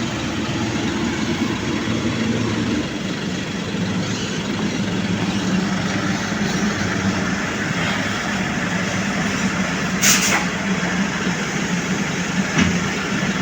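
Heavy engine running steadily, with a short sharp hiss about ten seconds in.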